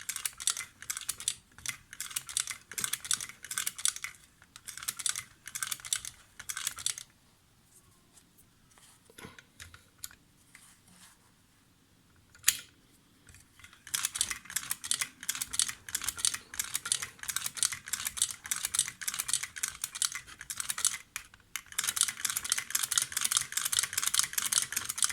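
Pre-war German toy chain-stitch sewing machine running, its mechanism clattering rapidly in spells of a few seconds. It stops for several seconds in the middle, broken by one sharp click, then runs again.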